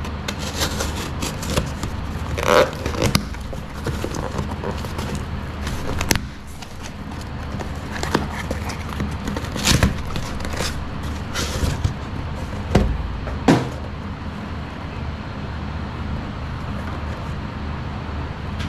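Packaging being handled and opened by hand: scattered clicks, knocks and rustles over a steady low rumble. The handling noises stop a little past the middle, leaving the rumble alone.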